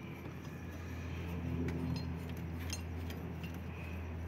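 An engine idling steadily with a low hum, with a few light metallic clinks scattered through it.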